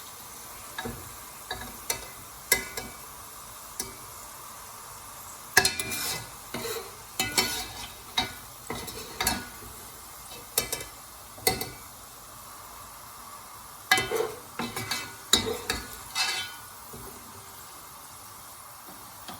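Onions sizzling in hot oil while a spoon scrapes and knocks against the pan, lifting the golden-brown fried onions out. The scrapes and knocks come in two busy spells; the last few seconds are only the steady sizzle.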